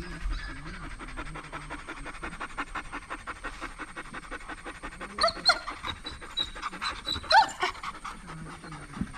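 Dobermans panting rapidly and steadily, with two short high-pitched dog cries about five and seven seconds in.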